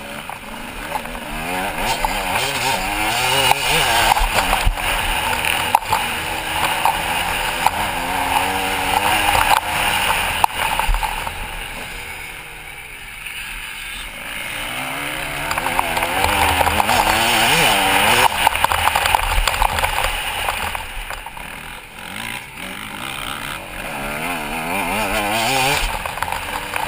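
Motocross bike engine under race throttle, revving up and down as it is ridden round the dirt track, the pitch rising and falling with each gear and corner. It builds to full revs twice, easing off about halfway through and again near the end.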